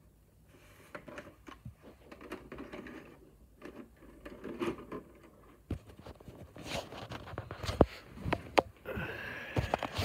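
Handling noises from a VHS cassette being handled and moved about: scattered clicks, knocks and rustling that grow busier and louder in the second half. A sharp click comes a couple of seconds before the end, followed by a brief rising whine.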